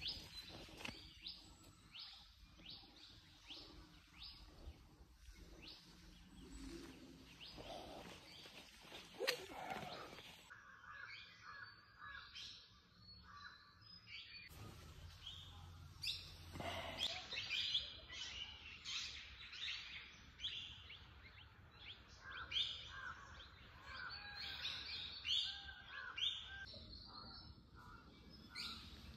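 Small birds chirping in woodland: many short, high calls one after another, faint.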